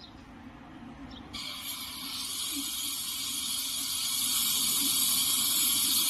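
Gas brazing torch flame hissing; a louder, brighter hiss comes in about a second in and keeps building. The torch is sealing off a refrigerator's pinched-off copper process tube.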